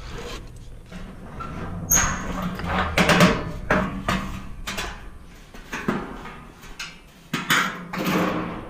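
Tools and equipment being handled, with irregular clanks, knocks and scraping, and a squeak among them.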